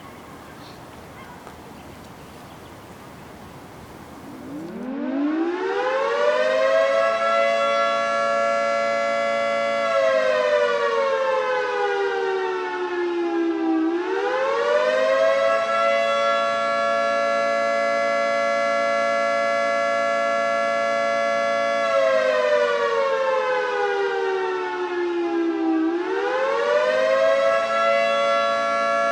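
Federal Signal 3T22A three-tone outdoor warning siren starting its attack signal: about four and a half seconds in it winds up to a steady chord, then slides down in pitch and back up over a cycle of roughly twelve seconds, twice.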